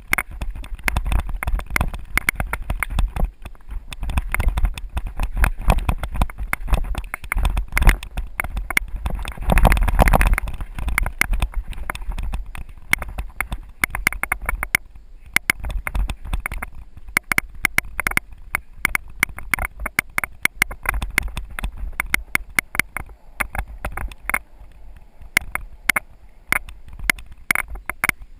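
Mountain bike descending a rough dirt singletrack: dense, irregular clatter and rattling from the bike over roots and bumps, with low rumble of wind and trail shock on the camera's microphone, heaviest around ten seconds in.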